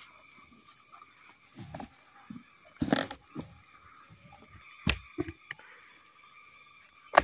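Plastic irrigation pipe fittings and a water filter housing being handled and screwed together by hand: scattered knocks and clicks, the sharpest at the very end, over a faint steady high hum.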